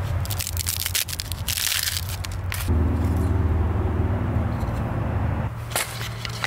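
A piece of dry driftwood being split apart by hand: crackling and splintering in the first couple of seconds and a few sharp cracks near the end. In between, a low steady drone is the loudest sound.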